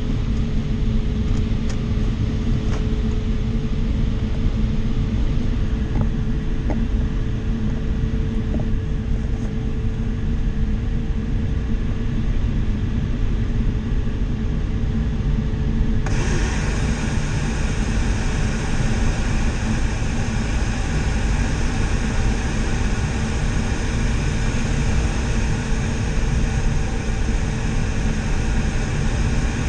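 Steady rush of air over a sailplane in gliding flight, heard from inside the cockpit, with a low rumble underneath and a faint steady tone through the first half. About halfway the hiss suddenly grows louder and brighter.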